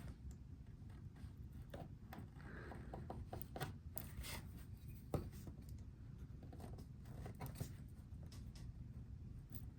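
Quiet hand work on wood: scattered light clicks and taps, with a short scraping stretch about two and a half seconds in and a sharper knock about five seconds in, over a low steady hum.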